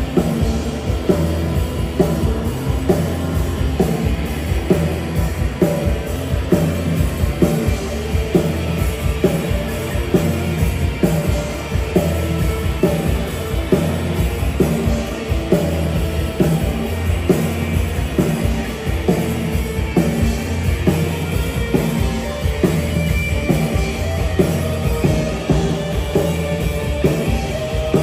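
Live rock band playing: electric guitar, bass guitar and drum kit driving a steady beat.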